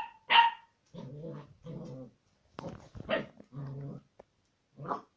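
Old English Sheepdog (bobtail) puppy giving short high yapping barks with low growls in between, at its own reflection in a mirror.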